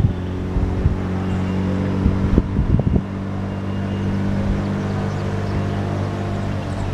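Wind buffeting the microphone in gusts, in the first second and again two to three seconds in, over a steady low hum, on an open chairlift ride.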